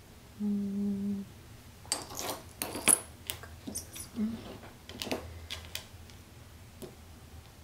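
Small pieces of glass and metal hand tools clicking and clinking as they are picked up and set down on a work surface: a dozen or so light, sharp taps over a few seconds. About half a second in there is a short low hum lasting under a second.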